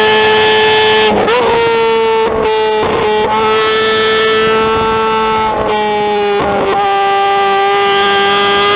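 Motorcycle engine held at high, nearly steady revs, a loud high-pitched tone broken by brief dips about five times.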